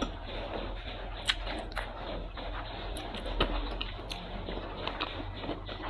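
Close-miked chewing of tender braised duck feet, wet mouth and lip sounds with a few sharp clicks and smacks.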